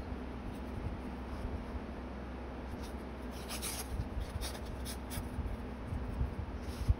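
Paper rustling in short, crisp strokes as small pieces of paper and labels are handled over an open journal, busiest about three to five seconds in, with a light tap near the end.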